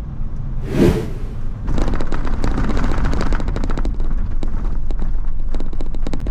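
Camper van rolling slowly over an uneven paving-block path: a low rumble with a dense run of rapid knocks and rattles from the tyres and body. There is a louder jolt about a second in.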